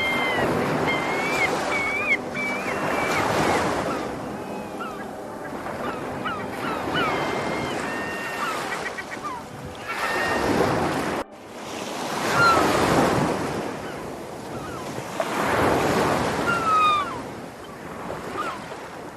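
Sea waves breaking and washing in, swelling and falling every few seconds, with seagulls calling over them in short rising and falling cries. The sound drops out for an instant about eleven seconds in.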